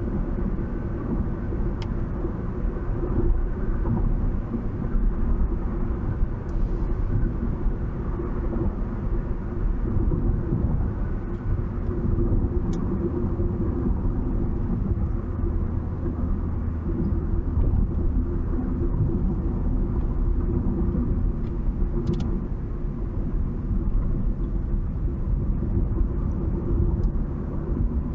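Steady low rumble of a vehicle driving at road speed: engine and tyre noise that holds even, without a break.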